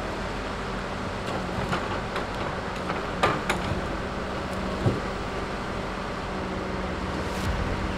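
Diesel logging machinery running steadily as a knuckleboom log loader swings a bundle of stems. Sharp knocks come a little after three seconds, twice, and again near five seconds.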